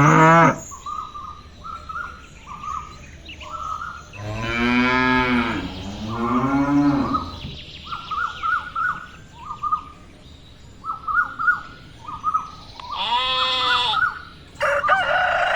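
Cattle mooing several times, with two long moos about four and six seconds in and a shorter one near the end, over small birds chirping steadily. A rooster starts crowing at the very end.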